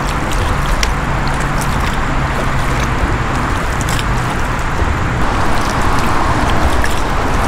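Steady noise of heavy interstate traffic on the I-70 bridge ahead: a constant hiss of tyres over a low hum of engines, with a few faint ticks.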